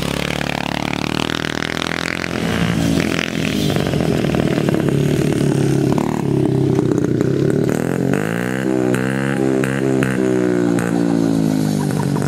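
Honda dirt bike engine running under a rider, the pitch rising and falling as it is revved and shifted, with a sharp climb about eight seconds in.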